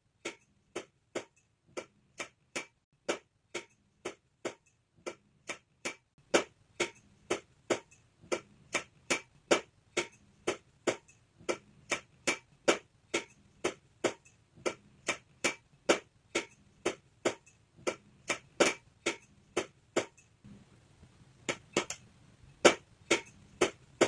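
A steady series of short, sharp ticks, about two a second, over a faint low hum.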